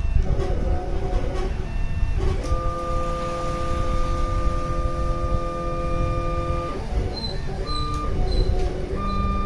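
A steady low rumble like passing traffic, with a vehicle horn held for about four seconds from a couple of seconds in, then a few short toots near the end.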